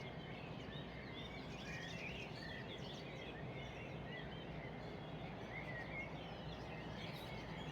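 Many small birds chirping and twittering over one another in a steady outdoor chorus, over a constant low background hiss.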